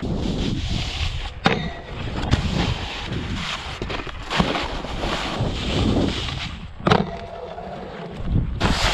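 Snowboard sliding and carving over snow, heard close on a body-worn action camera: a continuous scraping rush of the board on the snow, with wind on the microphone and sharp knocks about one and a half and seven seconds in.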